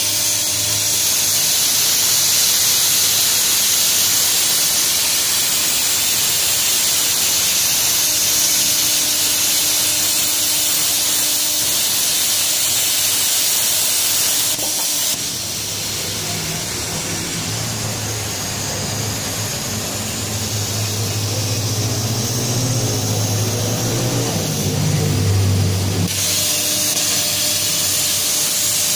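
CNC plasma torch cutting a metal sheet: the arc gives a loud, steady hiss. Just before halfway the hiss stops and a lower hum is heard for about ten seconds, then the hiss starts again a few seconds before the end.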